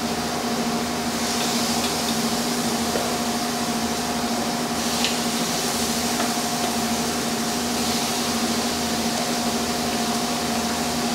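Steady whoosh and hum of a commercial kitchen exhaust hood fan, with a few short sizzles as marinated chicken pieces are laid on the hot char-grill grate.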